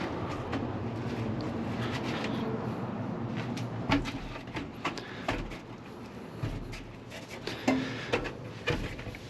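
Handling noise from a freshly inflated tubeless mountain bike wheel being turned and moved around to spread the sealant and check for leaks: a steady rolling rumble for the first few seconds, then scattered knocks and clicks.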